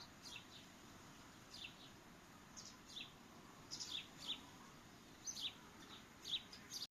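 Faint songbirds chirping: short high chirps, each falling in pitch, repeated at irregular intervals about once a second.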